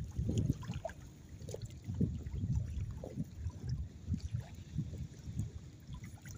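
Water lapping and trickling against shoreline rocks, coming in irregular low surges.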